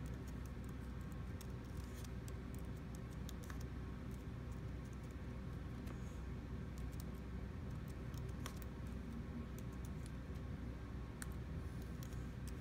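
MacBook Air keyboard being typed on: faint, irregular keystroke clicks over a steady low hum.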